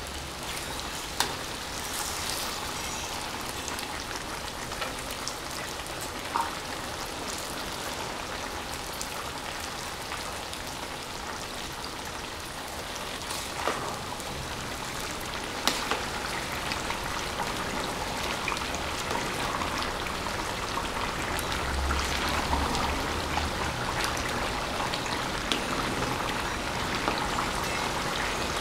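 Thin potato slices frying slowly in oil in an aluminium pan: a steady crackling sizzle that grows a little louder in the second half, with a few sharp clicks of a metal spoon against the pan as they are stirred. This is the gentle first fry that softens the potatoes for a tortilla de patatas.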